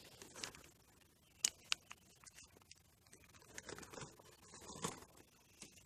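Handheld lighter being clicked: a few sharp clicks, several close together about a second and a half in and another near five seconds, with faint rustling between.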